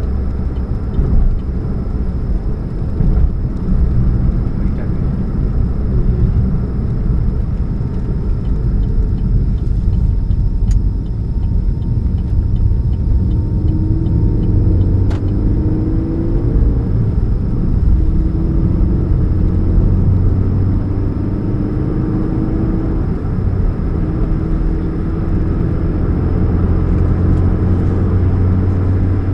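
2013 Chevrolet Spark's 1.2-litre four-cylinder running with a steady low hum and rumble. From about halfway through, short tones rise in pitch again and again. The hum is taken for the sign of an exhaust leak at the catalytic converter.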